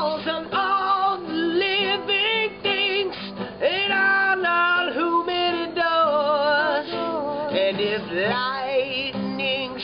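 Wordless singing, high and wavering, with wide pitch swoops and fast vibrato, part of a song.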